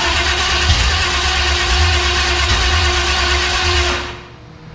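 Chevy 350 small-block V8 being cranked over by its starter motor, a steady whine with a pulsing low chug, without catching. The cranking stops about four seconds in.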